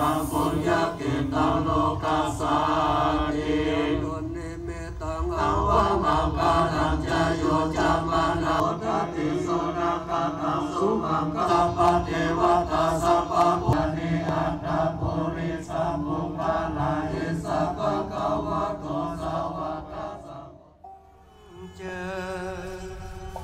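Buddhist monks chanting prayers together through a microphone and loudspeakers, a steady group chant that stops about twenty seconds in.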